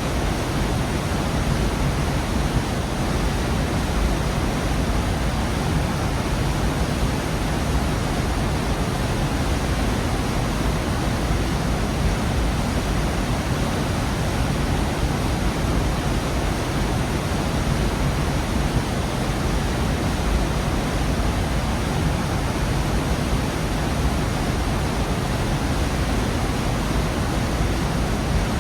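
Gorge waterfall: a steady, even rush of falling water with a deep low rumble beneath it.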